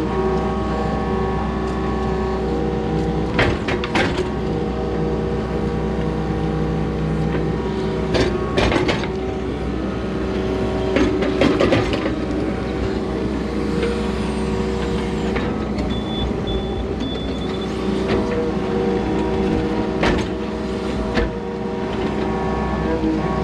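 Excavator engine and hydraulics running steadily, heard from inside the cab as the bucket digs soil from a trench and swings out to dump it. Short clanks and knocks come several times, in pairs about 4, 9, 12 and 21 seconds in.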